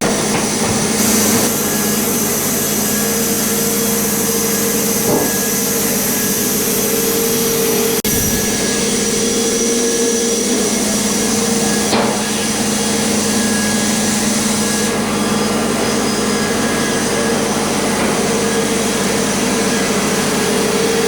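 Sawmill cutting an oak log: the machine runs steadily with a constant mechanical drone and hum as the blade works through the wood.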